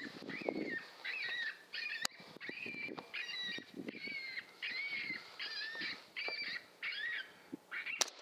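Predator call playing a distress sound: short, wavering, high-pitched cries repeated about twice a second. A single sharp crack comes near the end.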